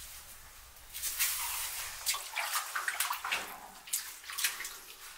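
Hands scraping and rubbing over a soft, clay-like stone block: an irregular run of quick scrapes that starts about a second in.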